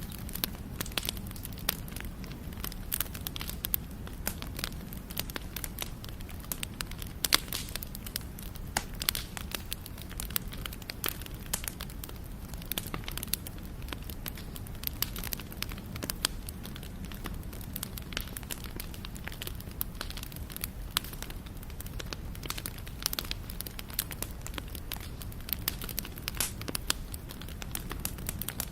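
Wood fire burning: a steady low rumble with frequent sharp, irregular crackles and pops of burning wood.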